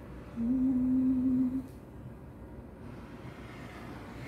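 A single hummed "mmm" held on one steady pitch for about a second, starting just under half a second in, then faint room noise.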